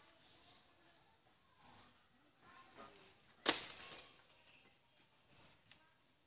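One sharp strike of a hand tool into earth and roots about three and a half seconds in, the loudest sound, with a few fainter knocks around it. A bird gives two short, high chirps, about a second and a half in and near the end.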